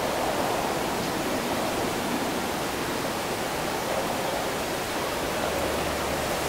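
Steady rushing noise of city ambience after rain, an even wash of wind and wet-street sound with no distinct events. A faint low hum comes in near the end.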